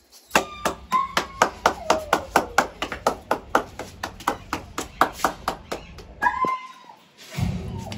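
Hands clapping in a fast, steady rhythm, about five claps a second, stopping about six and a half seconds in. A few short high squeaks sound over the clapping, and a low rumble comes near the end.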